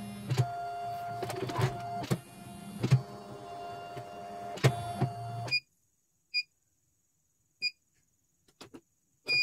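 CNY computerized embroidery machine running its embroidery unit: a steady motor whine with sharp clicks, which cuts off abruptly about five and a half seconds in. Then three short beeps from its control panel, a second or more apart.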